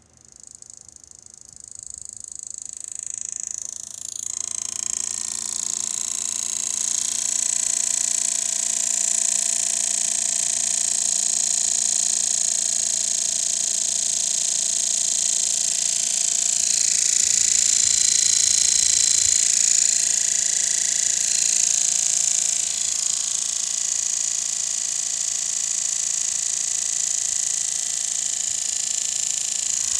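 Fan on a Zotac GTX 1080 AMP Edition graphics card spinning up over the first few seconds, then running loud and steady with a high-pitched whine. It makes the very annoying, broken noise of a defective right fan.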